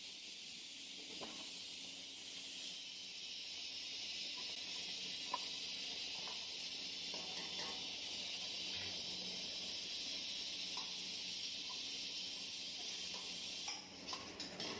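Steady hiss from a steel wok of red chili sauce cooking over a gas burner, with a few faint clicks. Near the end the hiss drops and a metal ladle clinks against the wok a few times.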